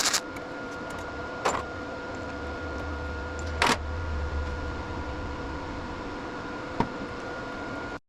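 Small electric gear motor, such as a welding positioner's drive, running with a steady whine, and three sharp clicks or knocks spread across it.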